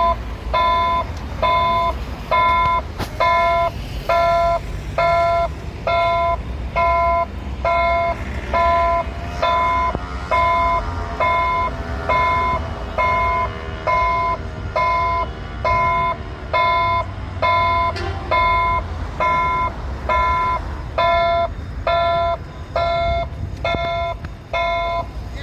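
Electronic warning beeper repeating a pitched beep about once a second, each beep about half a second long, over the low rumble of a Toshiba electric multiple unit pulling out of a station.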